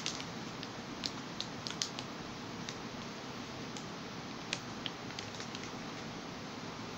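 Clear plastic bag around a vinyl figure crinkling as it is handled: scattered light crackles and clicks, thickest in the first couple of seconds and sparse later, over a steady background hiss.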